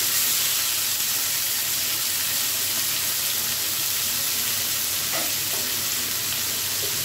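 Diced potatoes frying in hot oil in a kadai, giving a steady sizzle, with a metal spatula stirring them at first.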